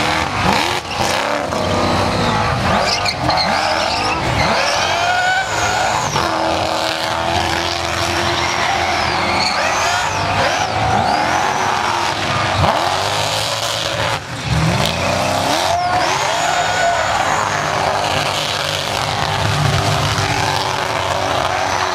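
Supercharged, alcohol-fuelled engine of an HK Holden Monaro GTS held at high revs during a burnout, the revs dipping and climbing back several times, with the rear tyres squealing throughout.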